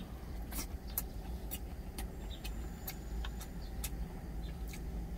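Close-up mouth sounds of chewing a mouthful of fried egg: scattered soft clicks and smacks. Under them runs a steady low rumble.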